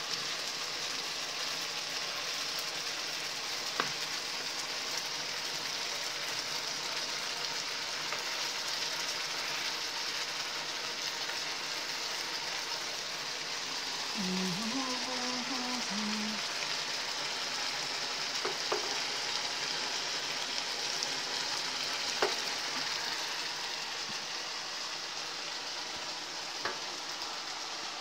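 Chicken wings sizzling steadily in a frying pan as the spicy adobo-style sauce cooks down, with a few sharp clicks of a metal spoon against the pan as they are stirred.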